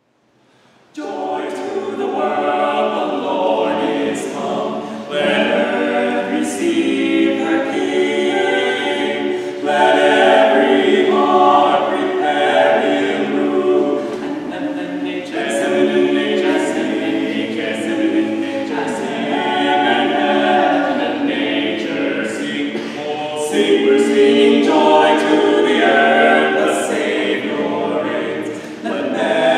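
Unaccompanied voices singing together in harmony, a cappella, starting about a second in.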